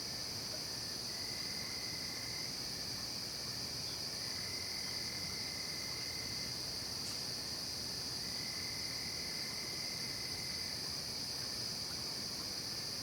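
Night chorus of insects in a forest: a steady, high-pitched shrill that never lets up. Over it, a lower trill comes in three times, each lasting about two seconds.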